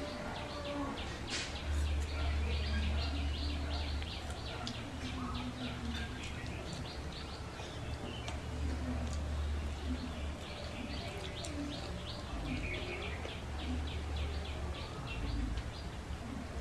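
Quick runs of short, high chirps, like small birds calling, repeating several times a second, over a low steady hum.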